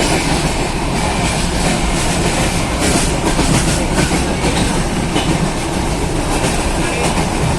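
Passenger train running on the rails: a steady loud rumble of wheels on track with clickety-clack.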